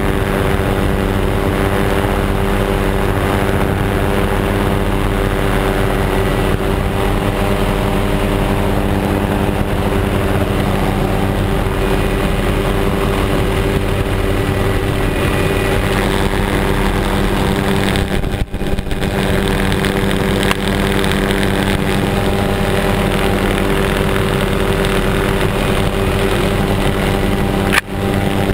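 Helicopter in flight, heard from aboard: a steady engine and rotor drone with several held tones. Near the end a brief sharp knock, and the sound drops out for an instant twice.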